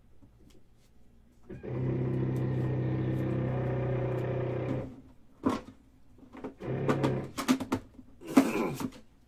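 A steady machine hum lasts about three seconds and cuts off abruptly. It is followed by a run of knocks and clicks as a metal card tin and its lid are handled, with one sharp knock near the end.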